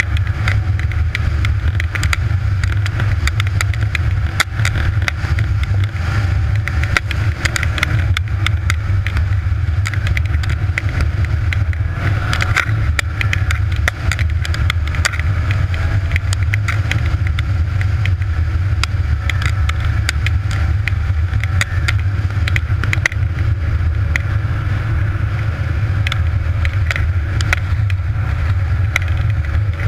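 Snowmobile engine running steadily under way, heard from on the machine, with frequent short rattles and knocks as it rides over the snow.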